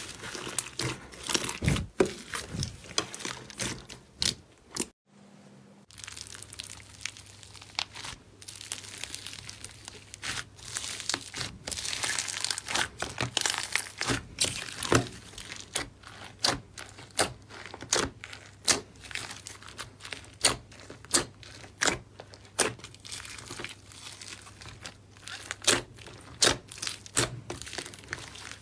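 Hands squeezing and kneading thick foamy slime in a tub, giving a dense run of sharp crackles and pops. There is a short drop-out about five seconds in, after which the crackling goes on.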